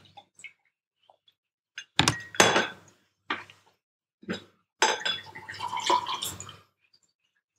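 Glass knocks and clinks of bottles and a glass set down and handled on a bar top while a long drink is mixed. About halfway through it gives way to a longer spell of ice and liquid going into a tall glass.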